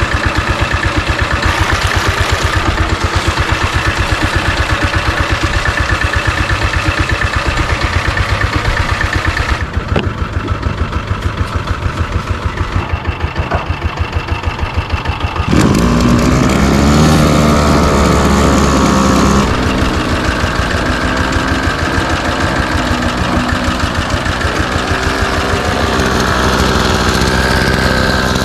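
Small engine of a Kawasaki K-767 backpack power sprayer running with a fast, even firing beat; about fifteen seconds in it suddenly gets louder and higher.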